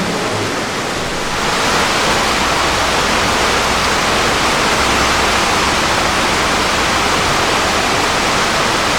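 Steady rushing water, an even hiss that grows louder about a second and a half in.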